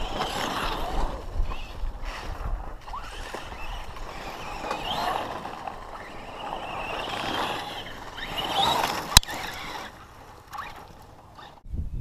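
Traxxas brushless electric RC trucks driving on dirt: the motor whine rises and falls as they speed up and slow down, over tyre and dirt noise. A single sharp knock about nine seconds in.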